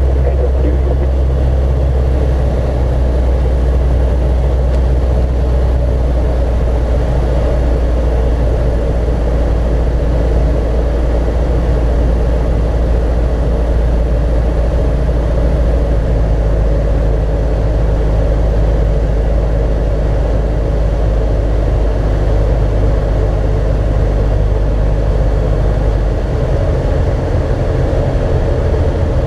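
Socata TB-9 Tampico's four-cylinder Lycoming engine and propeller running steadily, heard from inside the cockpit. The engine note changes pitch near the end as the power setting is altered.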